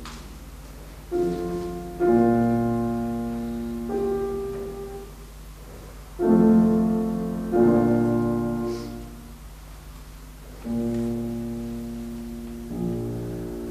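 Grand piano playing slow, quiet chords, each struck and left to ring and fade before the next, about seven in all. No voice is heard with it.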